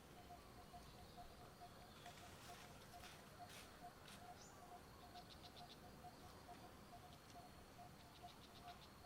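Faint outdoor ambience, close to silence: a soft note repeats evenly about three times a second, with a few short high-pitched chirping trills and occasional clicks.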